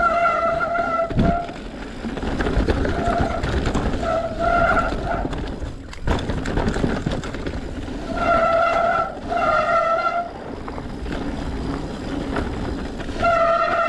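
Commencal Meta mountain bike running down a dirt trail: tyre rumble, chassis rattle and wind on the mic. Several stretches of a high, steady whine with overtones come and go, the longest near the end. There is a sharp knock about six seconds in.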